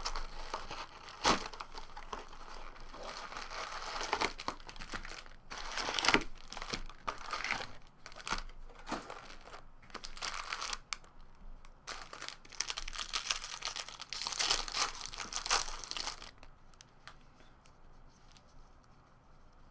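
Plastic wrapping of trading card boxes and packs being torn open and crinkled by hand, with rustling handling, in irregular bursts; it dies down about 16 seconds in, leaving faint room tone.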